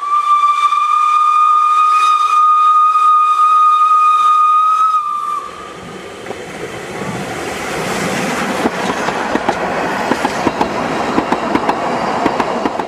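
Steam whistle of an Isle of Man Steam Railway Beyer Peacock 2-4-0T tank locomotive: one long, steady blast of about five seconds. Then the locomotive and its coaches run past close by, a rising rattle and clatter of wheels on the rails.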